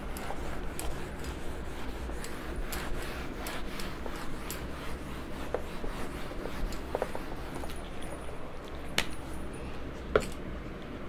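Cloth wiping a whiteboard: a steady rubbing and scuffing made of many small strokes. Two sharp clicks come near the end.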